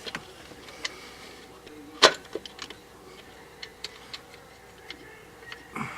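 Scattered light clicks and taps, one louder about two seconds in, from a nut driver tightening the screws of a distributor cap.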